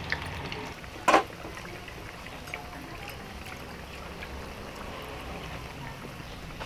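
Sabudana vadas deep-frying in hot oil in a steel kadhai: a steady sizzle with small crackles and pops. A single sharp clink about a second in.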